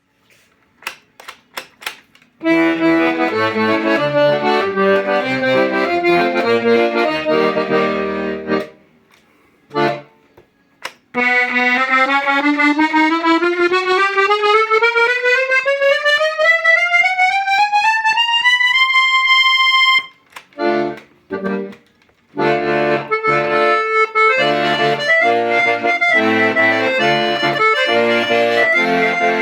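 Hohner Student IV accordion being played. A few clicks open it, then chords over bass notes. A smooth run climbs up to a held high note, a couple of short stabbed chords follow, and then steady playing of chords with bass.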